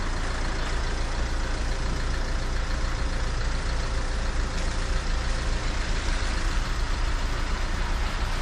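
A van's engine idling steadily: a constant low drone under an even hiss.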